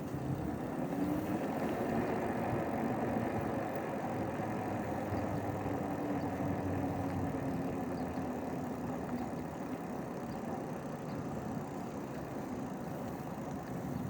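Adult tricycle rolling along a paved path: a steady rolling noise of tyres and drivetrain, with a faint hum that drifts slightly in pitch.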